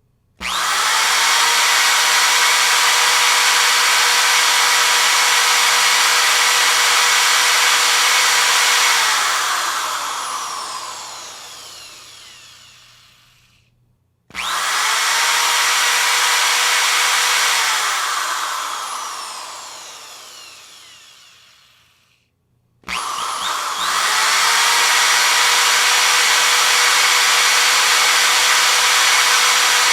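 Power drill triggered three times. Each time it spins up quickly to a steady whir. The first two times it is released and coasts down slowly, falling in pitch, before stopping.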